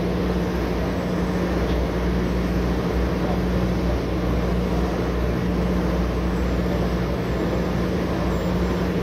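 Oil drilling rig's machinery running at an unchanging pace: a constant drone with a steady low hum.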